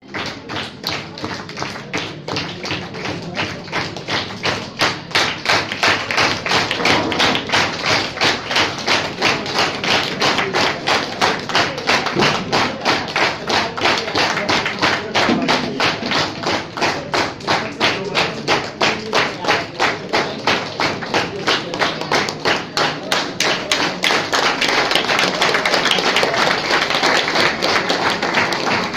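Audience clapping in unison at a steady beat of about two claps a second, loosening into scattered applause near the end.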